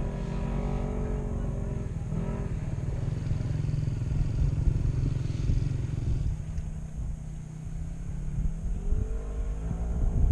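Dune buggy engine idling with a steady low rumble. From about eight and a half seconds in, an engine revs, its pitch rising and falling.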